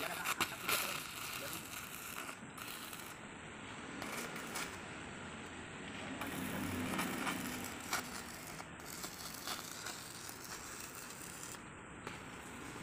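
Electric arc welding on a steel pipe: the arc crackling steadily.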